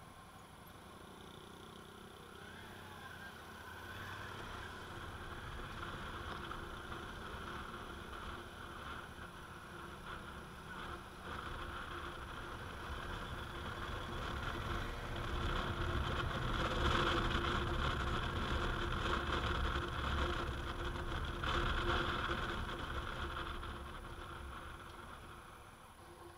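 Honda Africa Twin's parallel-twin engine running as the motorcycle rides at town speeds, mixed with wind noise on the microphone. The sound builds as the bike speeds up toward the middle, then eases off near the end as it slows.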